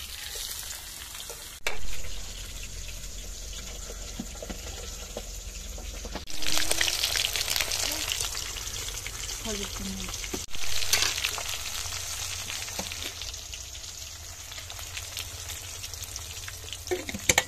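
Spice-coated fish pieces frying in hot ghee in an iron karahi, sizzling and spitting. The fish went into the pan still wet from washing, so the water makes the fat crackle. The sizzle jumps suddenly louder about 2, 6 and 10 seconds in.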